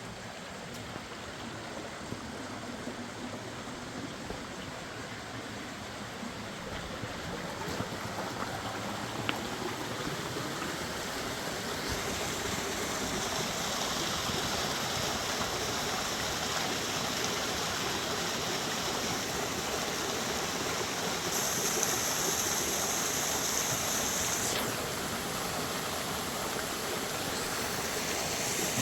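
A fast mountain river rushing: a steady noise of running water that grows gradually louder, with a brighter hiss from about halfway through.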